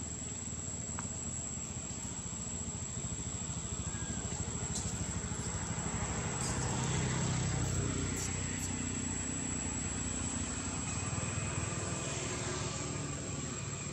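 A motor vehicle's engine hums steadily nearby, swelling to its loudest about halfway through and then easing off, as if passing by. A thin, steady high whine runs underneath it.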